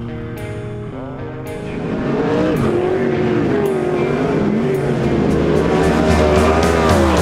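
A sprint car's engine running, its pitch rising and falling as the throttle is worked, getting louder about two seconds in, over rock music.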